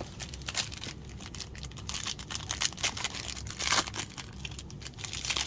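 A trading card pack's foil wrapper crinkling and tearing as it is ripped open, in a rapid run of crackles that is busiest in the middle.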